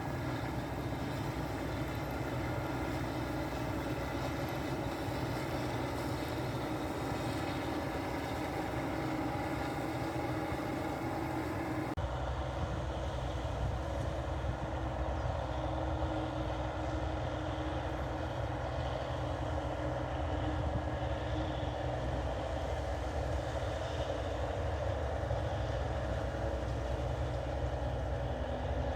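New Holland 8080 rice combine harvester running steadily while cutting rice, its engine and threshing machinery making a continuous drone. About twelve seconds in the sound turns abruptly duller, with more low rumble.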